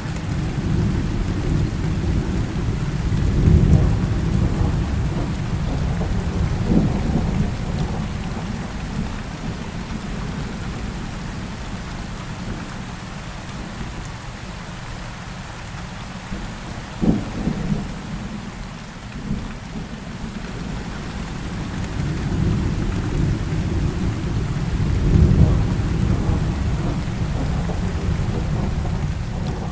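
Heavy rain falling steadily, with rolling thunder rumbling underneath. Swells of rumble come early and again near the end, the loudest near the end, and a single sharper thunderclap falls a little past halfway.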